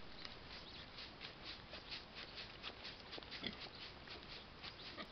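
A pig rooting and chewing in the soil: faint, rhythmic crunching and rustling, about four times a second.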